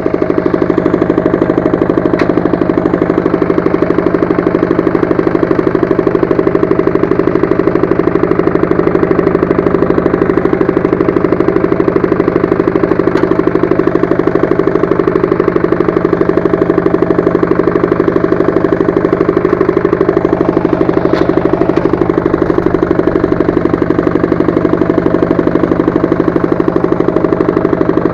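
Walk-behind tractor's single-cylinder engine running steadily with fast, even firing pulses.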